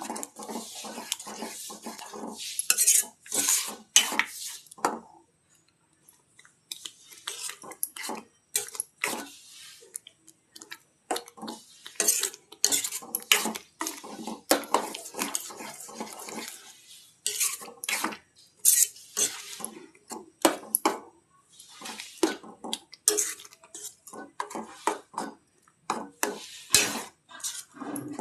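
Metal utensils clinking and scraping against pots and dishes in irregular strokes, pausing for a couple of seconds about five seconds in.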